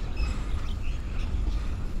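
Container freight train rolling past: a steady low rumble of loaded flat wagons running on the rails, with a few short bird chirps above it.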